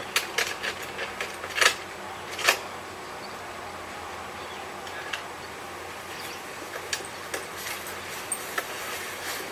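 Clicks and clunks of a VCR being handled and its buttons pressed, the two loudest about a second and a half and two and a half seconds in, with fainter clicks later over a steady hiss.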